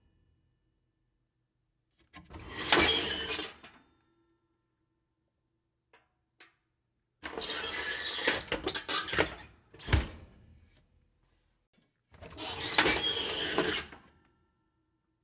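Creaky oven door hinges squealing as the door is opened, three separate creaks of one to three seconds each with silence between. The second creak ends in a low thump.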